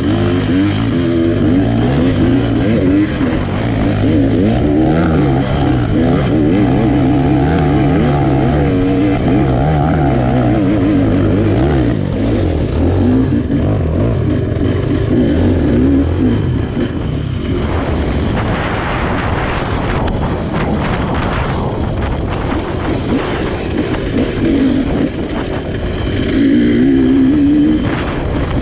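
GR8 300 2T two-stroke enduro motorcycle engine running under load while being ridden, its pitch rising and falling with the throttle. A little past the middle there is a rougher, noisier stretch.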